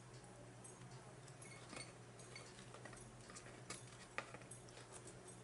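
Quiet eating sounds close to the microphone: scattered soft clicks and ticks of chewing and food handling, with one sharper click about four seconds in.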